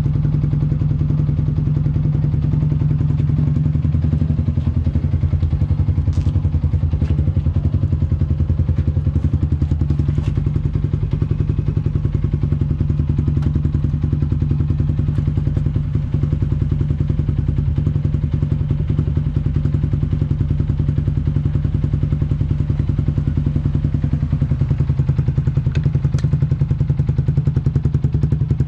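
Yamaha Sniper 150's single-cylinder four-stroke engine idling steadily through a UMA Racing Tru Pressure aftermarket exhaust, with a few faint clicks over it.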